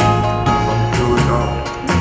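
Background music: an upbeat song with guitar, a steady bass line and a regular beat.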